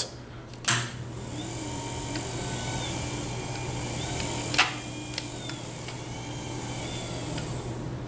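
Power-wheelchair drive motors running under joystick control: a steady low hum with faint whines that rise and fall in pitch as the speed changes. Two sharp clicks come, one under a second in and one past four seconds.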